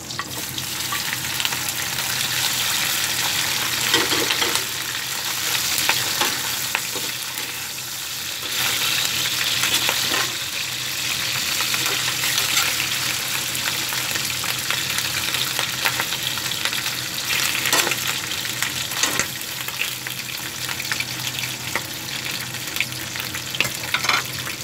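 Pre-boiled pork pieces sizzling as they fry in hot oil in an aluminium wok. The sizzling swells within the first second as the meat goes in, with a metal spatula scraping and knocking against the pan now and then as the pieces are stirred.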